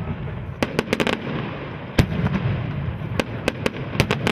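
Aerial fireworks exploding in a display: a quick cluster of sharp bangs about a second in, then single loud bangs at intervals and a pair near the end, over a continuous low rumble of further bursts.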